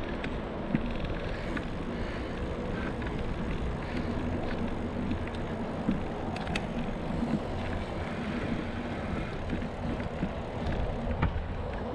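Wind buffeting the microphone and tyre noise while riding a bicycle along a concrete footpath, a steady rushing with a few light clicks.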